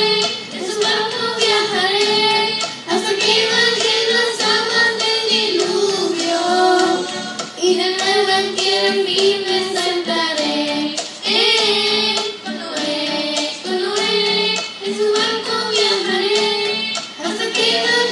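Two young girls singing a worship song together into handheld microphones, amplified through a PA, in a continuous sung melody with held notes.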